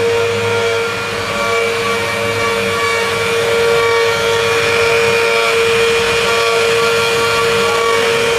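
Multi-head CNC wood router, its router spindles running and carving relief panels into wood. A steady whine sits over the noise of the bits cutting, at an even level throughout.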